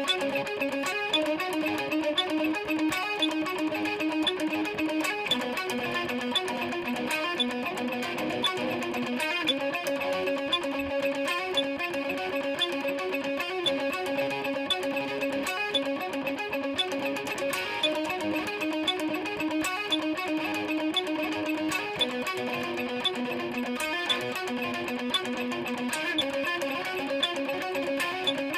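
SG electric guitar played, with a run of picked notes moving around the neck and held notes that change every second or so.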